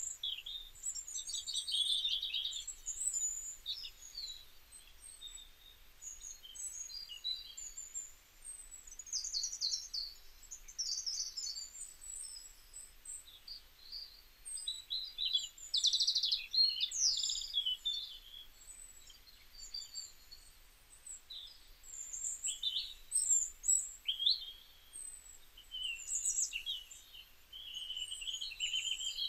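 Small songbirds chirping and twittering: many short, high calls in quick runs that come and go, with quieter gaps between.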